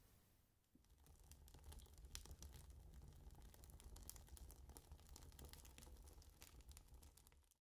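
Faint crackling of a burning wooden match, a dense patter of tiny ticks over a low rumble, starting about a second in and cutting off abruptly near the end.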